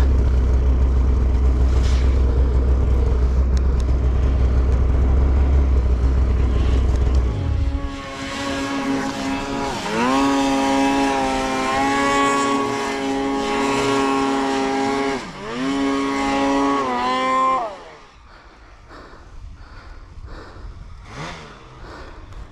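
Snowmobile engine running under way, a loud steady low rumble that cuts off about seven seconds in. Then a snowmobile engine revs up and down, its pitch rising and falling several times, before it drops away to quiet about eighteen seconds in.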